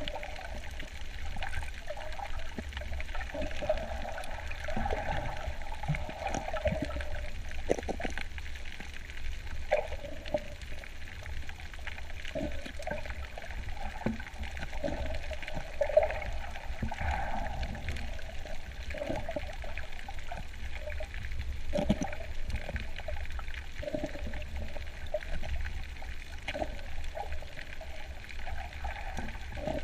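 Muffled underwater water sounds while snorkeling: sloshing and gurgling over a steady low rumble, with scattered short clicks.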